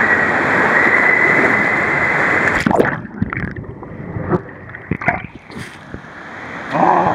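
Water rushing down a water-slide chute under a sliding rider. About three seconds in it cuts off suddenly as he plunges into the splash pool. After that come muffled gurgles and bubbling heard underwater, and a splashy rise near the end as he surfaces.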